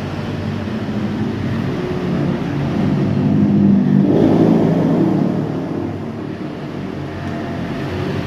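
A motor vehicle engine running steadily, rising in loudness and pitch to a peak about four seconds in, then easing back.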